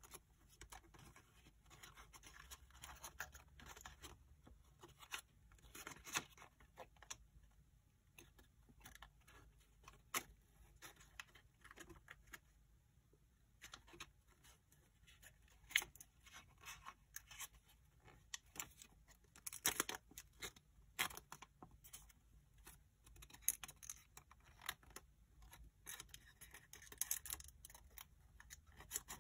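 Origami paper crinkling and rustling under the fingers as a folded flap is gently opened and turned inside out, a faint run of irregular small crackles and rustles.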